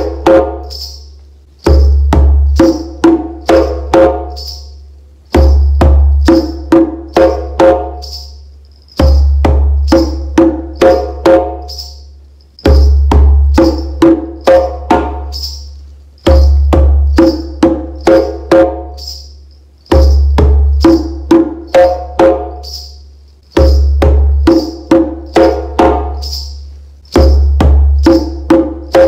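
Djembe played with bare hands in a repeating warm-up cycle of two bass strokes, two tones and two slaps, then two silent beats. The cycle comes round about every three and a half seconds, each time opening with a low thud. A light, even rattle from beaded ankle bands keeps the pulse through the rests.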